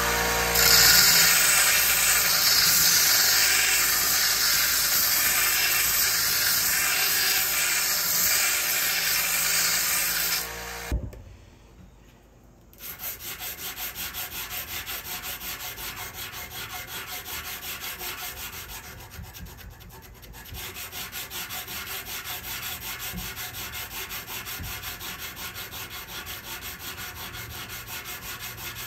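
Small benchtop belt grinder running with the railroad-spike steel blade held against the belt: a loud, steady hiss that cuts off about a third of the way in. After a short quiet gap, steady rhythmic rubbing strokes of hand-finishing along the blade clamped in a vise, a few strokes a second.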